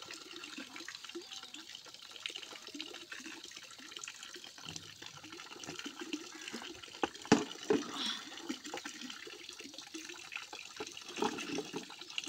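Water running steadily from a pipe into a plastic basin, with a few sharp clinks of steel dishes being handled, the loudest about seven seconds in.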